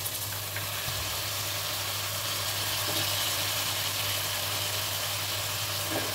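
Wet, salt-water-soaked jackfruit pieces sizzling steadily in hot oil and fried masala in an aluminium pressure cooker, a constant hiss over a low steady hum.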